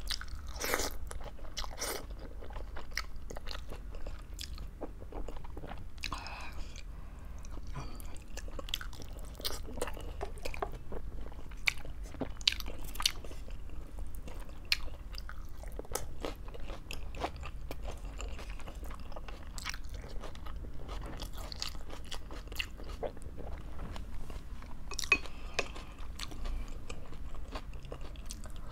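Close-miked chewing and biting, with frequent sharp mouth clicks and crunches as a person eats, over a faint steady low hum.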